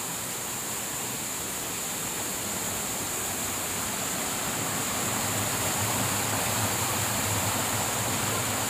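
Water of a small hill-stream waterfall rushing and splashing over rocks, a steady rush that grows slightly louder toward the end.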